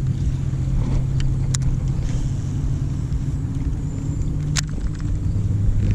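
A motor running steadily under way: a low rumbling hum that steps down in pitch near the end. Two sharp clicks sound, one about a second and a half in and one near the end.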